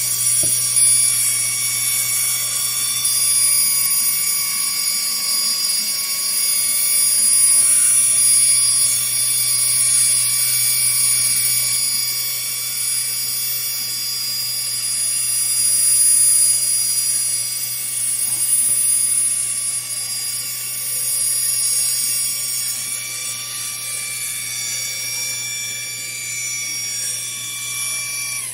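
Air assist pump and exhaust fan running steadily with a loud hiss and hum while the xTool D1 Pro 40 W diode laser cuts a job, its head's stepper motors adding high whining tones that come and go as it moves.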